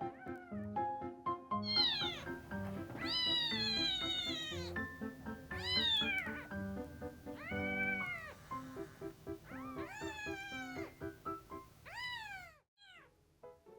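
Kitten meowing about six times: drawn-out, high calls that rise and then fall in pitch, over light background music.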